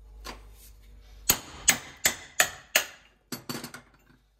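Hand hammer striking a mild steel drift in five sharp, ringing metal-on-metal blows, evenly spaced about three a second, driving the loosened, shrunken wooden handle out of a hammer head. A few lighter clinks follow.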